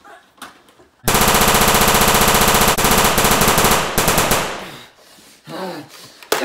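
Rapid automatic gunfire, likely an added sound effect, starting suddenly about a second in as one long fast-repeating burst with brief breaks, then fading away over about a second.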